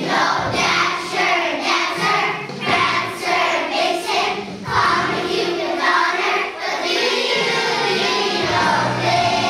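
A choir of young children singing a holiday song together over an instrumental backing track.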